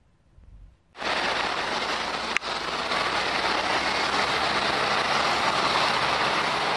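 Near silence, then about a second in a loud, steady rush of road traffic as cars drive past close by, engine and tyre noise together. A single sharp click comes a little after it starts.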